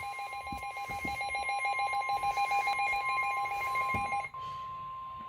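Emergency alert tone from a weather-radio warning broadcast: a steady single-pitched tone of about 1 kHz, the 1050 Hz warning alarm tone. Over it a second beep pulses rapidly and stops about four seconds in.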